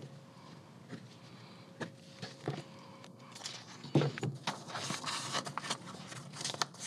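A book page being handled and marked in pencil against a slotted ruler: scattered light taps and clicks, the loudest about four seconds in, with a paper rustle a little past the middle.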